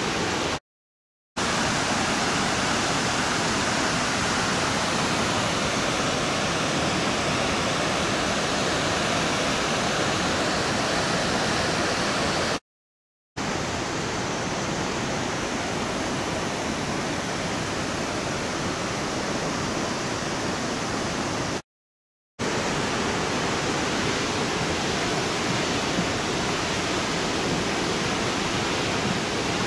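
Loud, steady rushing noise with no tone or rhythm in it, cut to dead silence three times for under a second each.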